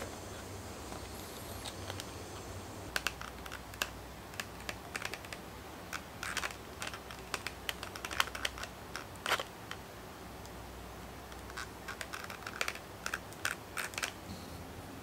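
Irregular light clicks and scratchy ticks, some in quick clusters, from hands working a stitched English Bridle leather briefcase handle with a small metal tool. They start about three seconds in and stop near the end.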